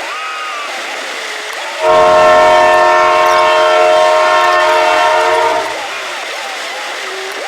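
A horn sounding one loud, steady chord of several tones for about four seconds, starting about two seconds in and cutting off cleanly.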